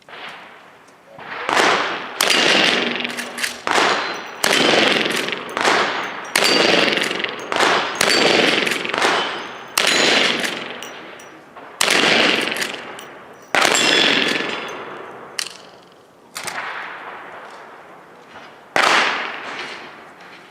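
A string of single gunshots fired at a steady pace, roughly one every one to two seconds, each shot followed by a long echo that fades before the next.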